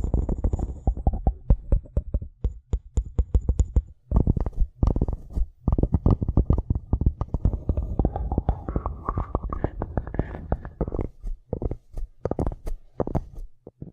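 Close-microphone ASMR tapping and scratching: rapid, irregular taps with a brief pause about four seconds in, thinning to scattered taps near the end.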